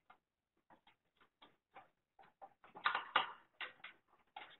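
Irregular light clicks and scraping taps of 3D-printed plastic pieces as thin sidewall parts are pushed by hand into the slots of a printed bracket. There is a busier, louder patch of clatter about three seconds in.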